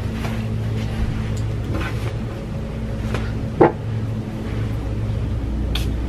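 Background music with a steady low bass drone; a beat of light, evenly spaced ticks comes in near the end. A brief rising squeal is heard once, about halfway through.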